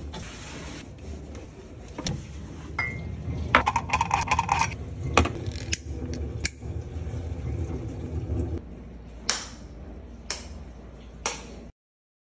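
Handling sounds of household objects: a cloth rubbing over a surface, a quick clatter of small hard clicks about four seconds in, and three sharp clicks about a second apart near the end, all over a low steady hum.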